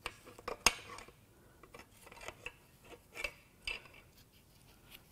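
Pliers clinking against a connecting rod and its cap inside a Toyota 2AR-FE engine's bottom end as the rod is worked loose: a series of light metal clicks and taps, the sharpest about half a second in.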